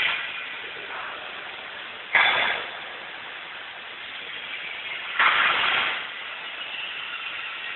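Overhead bridge crane with a rotating twin-hoist trolley running in a factory hall: a steady mechanical noise, broken by two short, loud noises about two and five seconds in.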